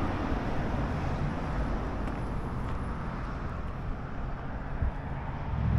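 Steady outdoor background noise of road traffic, an even rushing hum with no distinct events.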